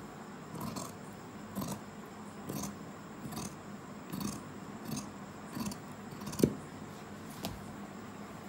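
Fabric scissors snipping through cloth in a steady run of cuts, about one a second, nine in all. One cut about two-thirds of the way through ends in a sharper, louder click.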